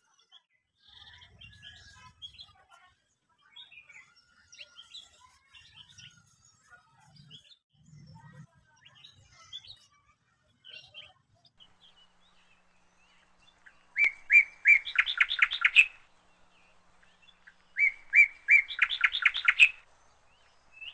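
A bird singing two loud phrases about four seconds apart. Each phrase is a few repeated notes that run into a quick rattling series of notes. Fainter chirps come before them.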